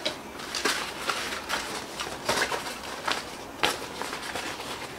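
A nylon cloth rod sleeve rustling as it is handled and a rod section is drawn out of it: a run of irregular short scuffs and rustles.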